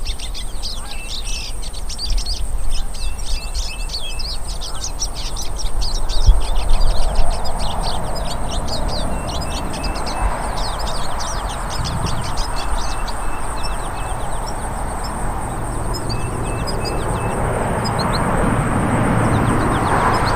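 Hooded siskins (pintassilgos) singing: a dense chorus of rapid, high twittering chirps with short repeated notes. A steady high tone runs underneath, and a rushing noise swells in the second half.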